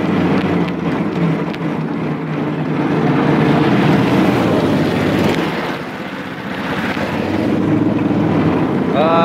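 Off-road go-kart engine running steadily as the kart drives slowly over rough ground, with wind on the microphone; it eases off about six seconds in, then picks up again.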